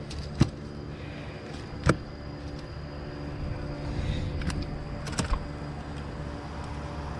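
A steady low mechanical hum, with a few sharp knocks of fishing gear against the aluminium boat hull as a caught fish is unhooked, the loudest about half a second and two seconds in.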